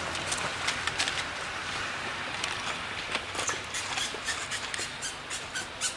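Dry leaves and twigs rustling and crackling in irregular clicks over a steady outdoor hiss.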